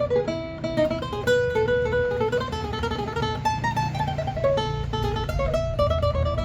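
Requinto, a small Mexican six-string guitar, played solo: a quick run of plucked melody notes over ringing bass strings.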